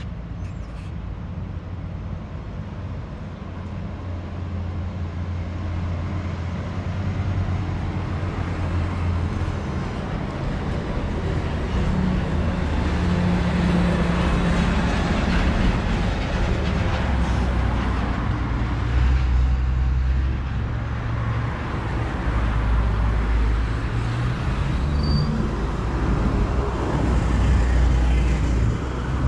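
Street traffic: motor vehicles driving past, with a heavy engine's low hum and tyre noise that grow louder over the first half and stay loud.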